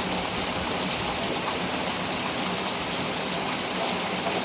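Steady rain falling, a constant hiss with faint scattered drop ticks.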